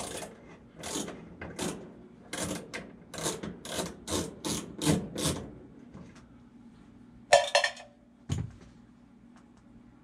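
Hand screwdriver backing a sheet-metal screw out of a Coleman gas furnace's combustion blower housing: about a dozen short scraping turns, two or three a second. A brief metallic clatter follows about seven seconds in, then a dull thump.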